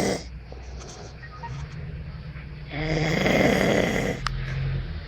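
A person snoring very loudly. One long, loud snore comes about three seconds in and lasts about a second and a half, with the end of the previous snore at the very start and quieter breathing between.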